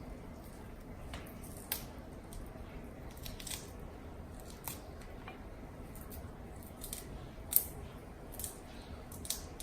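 Cooked shrimp being peeled by hand: the shell cracks and crinkles in small, irregular clicks, with one sharper snap about three-quarters of the way through.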